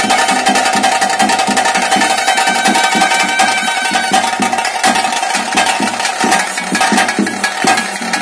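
Traditional ritual music: fast, steady drumming with a high held tone sustained over it.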